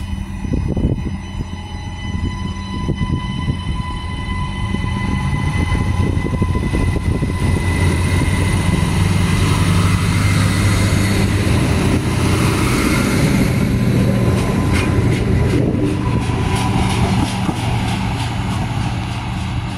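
3000/3100 class diesel railcar pulling away and passing close by: the diesel engine note builds up over a steady high whine. A run of sharp clicks comes in the last few seconds.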